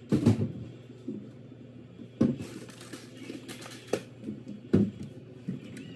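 Rummaging in a kitchen: a handful of sharp knocks and clatter of items being picked up and set down, with small clicks and rustling between.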